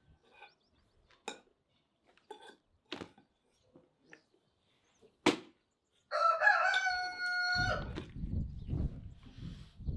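A few light clicks of a knife and fork on a plate, then a rooster crowing once, about six seconds in, for about a second and a half. A low rumbling noise follows the crow.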